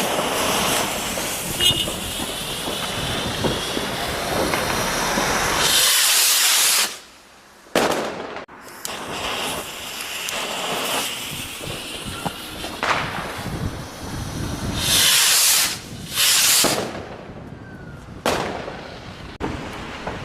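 Fireworks going off, with a continuous hissing and crackling. Louder rushing bursts come about six seconds in and again about fifteen seconds in, with a few sharp cracks.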